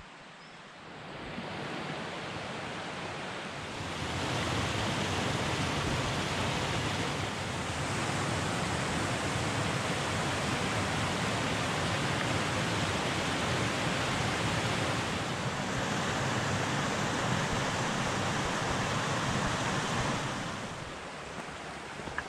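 Shallow stream rushing over a series of low limestone ledges in small cascades: a steady rush of water that swells about four seconds in and drops back near the end.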